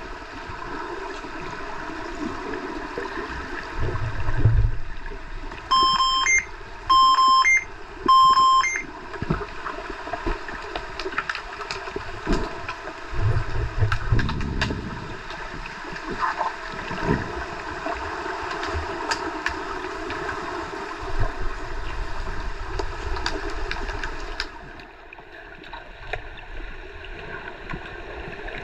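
Underwater pool ambience heard through an underwater camera: a steady rushing and bubbling of water from swimming hockey players, with scattered clicks and knocks and a few low thumps. About six seconds in come three loud electronic beeps, about a second apart.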